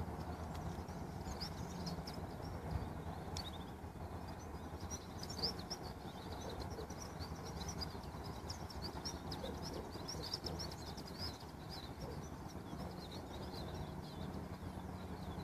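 Small birds chirping and twittering over a steady low outdoor rumble, with a brief click about five seconds in.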